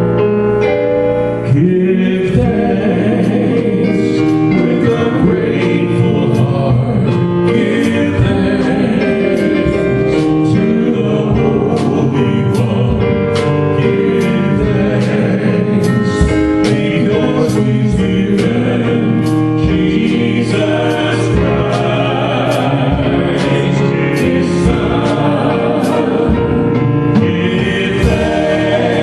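Gospel worship song: singing over piano and a steady beat, the voices coming in about a second and a half in after a piano introduction.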